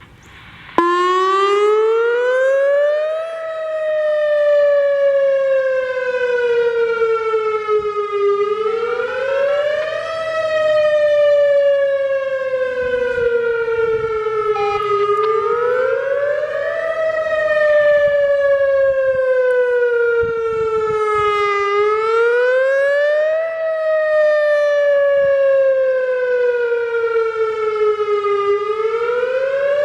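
WS-2000R outdoor warning siren wailing. It starts about a second in, and its pitch climbs quickly over about two seconds, then slides slowly down over about five, about four times over.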